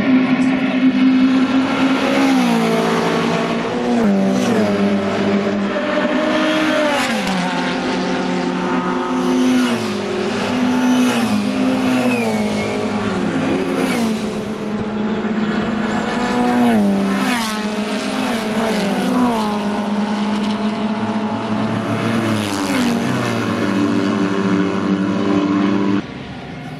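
Small-engined classic racing cars, Minis among them, running hard and passing one after another, with the engine pitch falling as each goes by. The level drops suddenly near the end.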